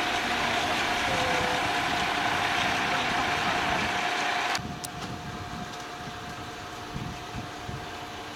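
Diesel locomotive idling: a steady engine and machinery hum with a constant whine. The level drops sharply about four and a half seconds in, and a lower rumble carries on.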